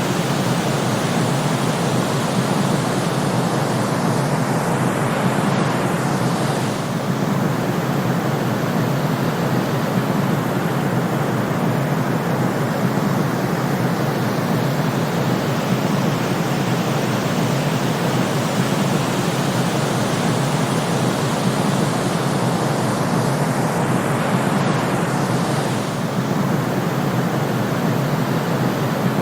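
Steady white-noise hiss of a sleep timer, even and continuous, with a slight dip in level twice, about 19 seconds apart.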